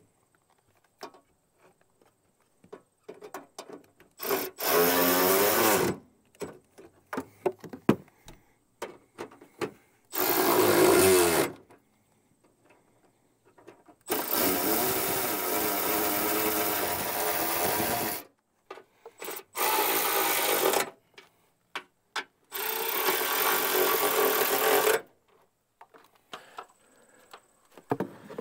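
Cordless power driver run in five bursts of one to four seconds, its motor pitch sagging and recovering as it drives in fasteners. Faint clicks and knocks of handling come between the bursts.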